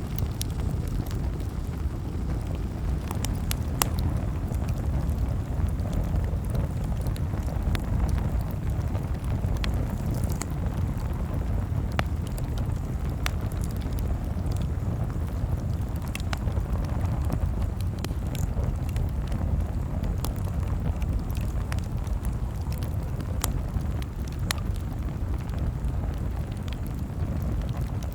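Campfire crackling: irregular sharp pops and snaps from the burning wood, a few every second, over a steady low rumble.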